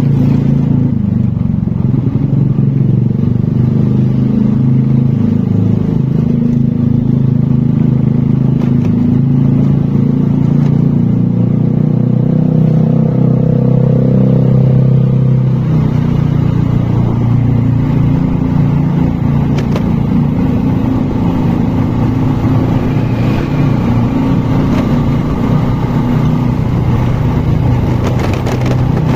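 A motor vehicle's engine running steadily while travelling, with a brief change in engine note about halfway through.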